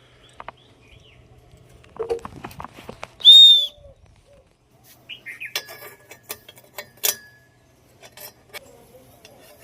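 Scattered metallic clicks and knocks from the turbo whistle being fitted onto a tractor's exhaust silencer, with a quick run of sharp clicks just past the halfway point. There is one loud, short, high-pitched chirp a little over three seconds in.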